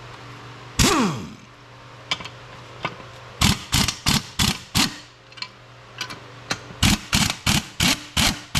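Hammer blows on metal. A loud first strike about a second in rings on and falls in pitch, then come two runs of sharp blows, about three a second.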